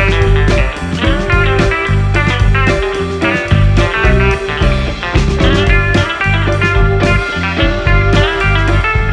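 Background music: electric guitar playing blues-rock with a steady beat.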